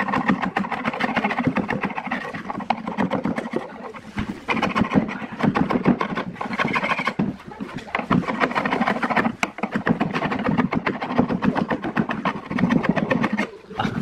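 A flat wood chisel scraping dried residue off the MDF baffle of a speaker box, in repeated gritty strokes with short pauses between them.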